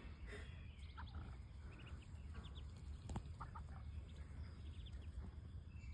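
Faint, scattered peeps from a brood of ducklings, short high calls every second or so, over a low steady rumble.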